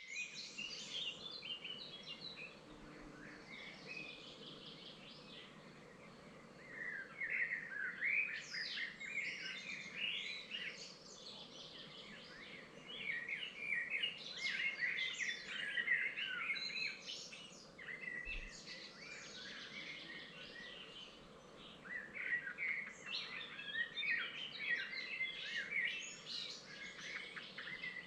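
Several songbirds singing at once, a dense, overlapping mix of quick chirps and trills, over a faint steady background hiss.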